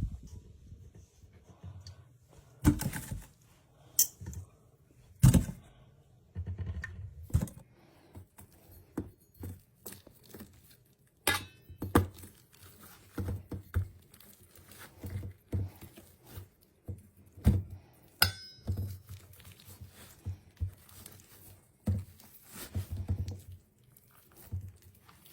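Irregular knocks, thuds and clinks of kitchen utensils and dishes being handled during food preparation, one every second or two.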